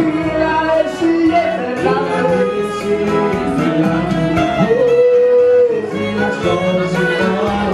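Gospel song playing: a singing voice over instrumental backing, with one long held note about halfway through.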